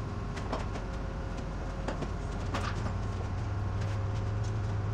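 Heavy diesel engine idling steadily, with scattered light clicks and knocks from a hand pallet jack being worked under a pallet of batteries.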